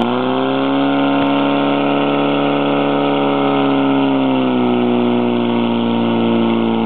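Portable fire pump's engine running at full throttle under load, driving water out to the jets: a steady high engine drone that sags slightly in pitch about four seconds in.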